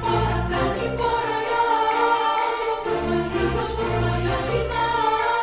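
Background music: a choir singing long held notes over a low orchestral accompaniment.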